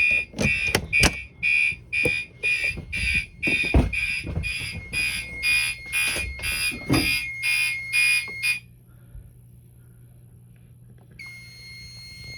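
Fire alarm horn sounding in even pulses about twice a second, set off by a test of an i3 smoke detector, with knocks and clicks mixed in. It cuts off abruptly about eight and a half seconds in. Near the end a steady electronic beep sounds for about two seconds.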